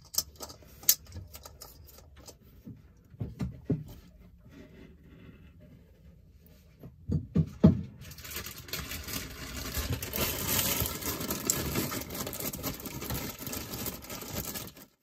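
Scattered clinks and knocks of a tool working the oil filter loose on a marine diesel engine, then from about eight seconds a steady rustling of the foil catch bag being worked around the filter.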